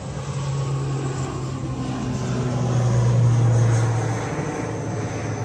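Twin-turboprop airliner taking off and climbing past, with a steady low drone of engines and propellers. The drone swells to its loudest about three seconds in, then eases off, dropping slightly in pitch as the plane passes.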